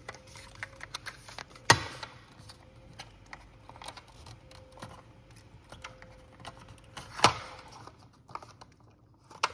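Plastic clicking and rattling as a smoke detector's battery cover is pushed and worked to shut, with two sharp snaps, one a little under two seconds in and one about seven seconds in. The cover will not latch closed.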